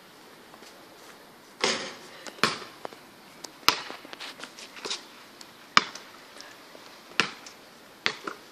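Basketball bouncing on an asphalt driveway: several sharp thuds at uneven intervals, a second or so apart.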